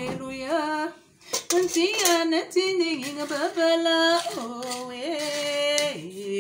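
A woman singing a slow melody with long held notes, with a few clinks and knocks of kitchen utensils.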